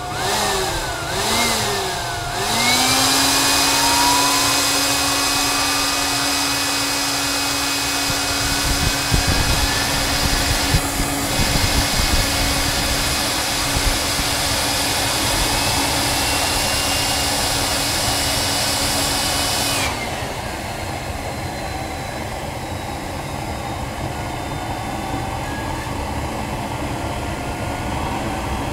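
An electric blower whines into the compressor inlet of a homemade turbocharger-based turbojet to spin it up for a start. Its pitch wavers for the first couple of seconds and then holds steady over the rush and rumble of the engine running. About twenty seconds in, the blower's whine cuts off suddenly and the turbojet keeps running on its own.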